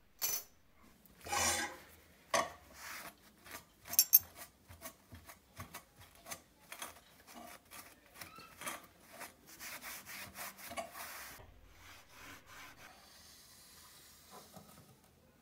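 A small rusty metal part scraped and knocked with a hand tool on a hard tabletop, in sharp irregular strokes. This is followed by a paper towel rubbing the part in quick strokes, which fade out near the end.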